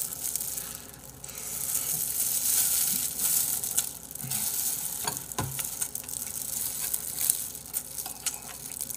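Close-miked eating: wet, crackly chewing and smacking of spicy bone-in chicken feet and a rice ball, coming in irregular gusts with small clicks.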